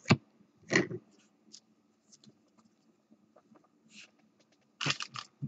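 Trading cards being handled: scattered light clicks and taps, with a brief soft rustle about four seconds in and a few quick clicks near the end.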